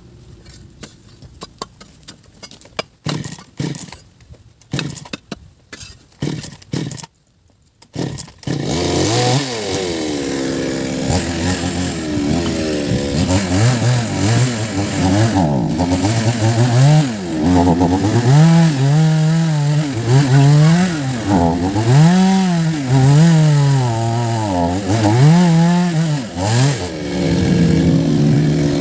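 Chainsaw: after several short, irregular noises, the two-stroke engine starts about eight seconds in and then runs loudly, its pitch rising and falling again and again as it is revved.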